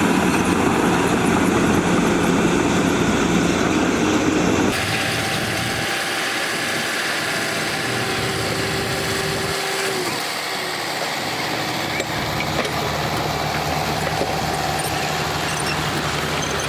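Heavy diesel construction machinery engines running. About five seconds in, the sound changes abruptly from a loud, dense running to a quieter, steadier one.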